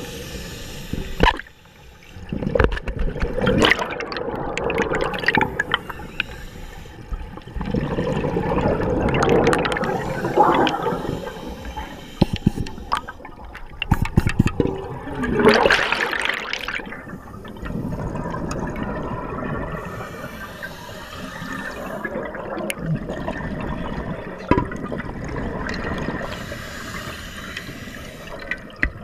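Scuba diver breathing underwater through a regulator: exhaled bubbles rush and gurgle out in surges every few seconds, with quieter stretches between breaths.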